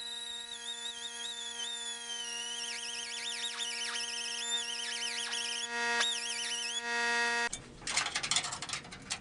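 Pneumatic cutoff tool running with a high whine over a steady hum. The whine's pitch wavers and drops sharply several times as the wheel bites into the thin cowl sheet metal. It cuts off about seven and a half seconds in, followed by quick clicks and rattles of metal being handled.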